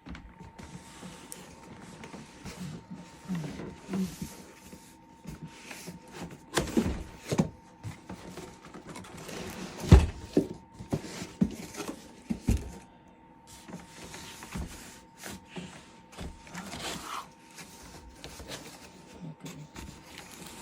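Cardboard box and packaging being handled by hand: scraping, rustling and scattered knocks, the loudest a thump about ten seconds in, over a faint steady tone.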